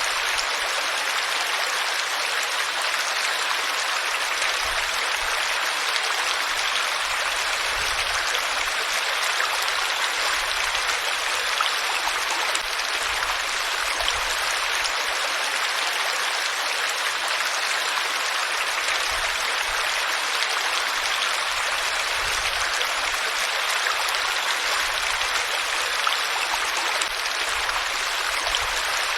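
Water flowing in a stream, a steady, unbroken rushing and splashing.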